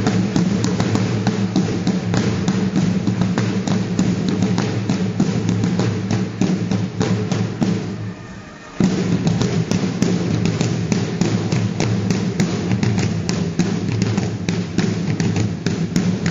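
Marching drum corps playing: many side drums beating together in a quick march, over a steady sustained low tone. The playing breaks off briefly about eight seconds in and starts up again.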